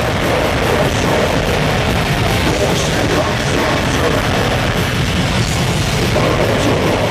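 Death metal band playing live at full volume through a PA: dense distorted guitars and drums with vocals into the microphone, recorded loud from the crowd.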